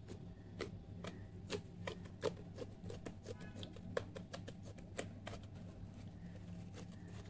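Slime mixed with foam being pressed and squeezed by hand, giving faint, irregular crackles and clicks, several a second, over a steady low hum.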